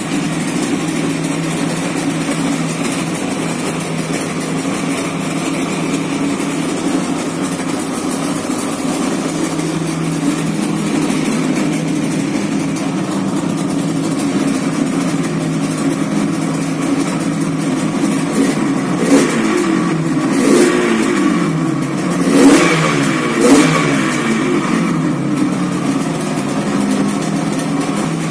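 Yamaha RD350's two-stroke parallel-twin engine idling steadily, then blipped on the throttle several times about two-thirds of the way through, the revs rising and falling each time before it settles back to idle.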